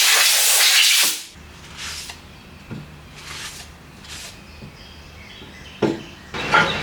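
Compressed air hissing out of the shop air system, cutting off about a second in. After that a low hum, three short puffs of air hiss and a sharp click near the end.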